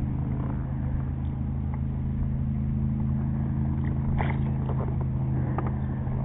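A motor hums steadily and low. About four seconds in and again near the end, brief splashes and clicks come as a small fish is reeled to the surface.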